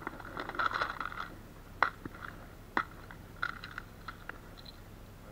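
A clear plastic tackle box of soft lures being handled: a clutter of small plastic clicks and rattles near the start, two sharp clicks about a second apart in the middle, then more rattling.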